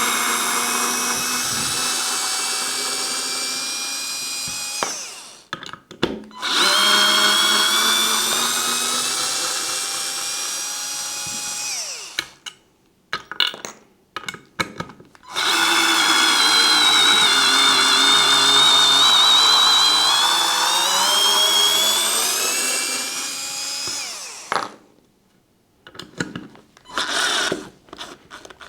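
Parkside PARS 4 A1 4-volt cordless stick screwdriver motor running in three long runs of several seconds each, a steady whine that sags slightly in pitch and comes back. A few short clicks near the end.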